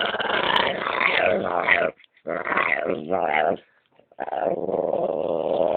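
Staffordshire bull terrier growling and grumbling in three long, warbling bouts, the vocal 'talking' noise of a dog having its belly rubbed.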